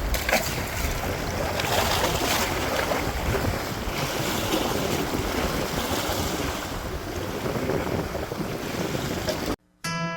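Wind buffeting the microphone over the wash of sea waves on the shore. Near the end it cuts off abruptly and acoustic guitar music begins.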